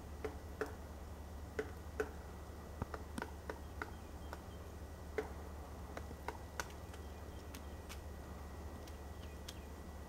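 Pileated woodpecker pecking at pine bark while foraging: irregular single taps and knocks, about a dozen, thinning out near the end.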